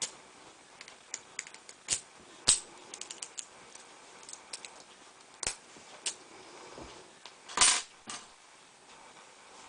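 Metal lock picks clicking and scraping in the keyway of a solid brass padlock full of spool pins: scattered light clicks as the pins are worked, with a louder rattle near the end.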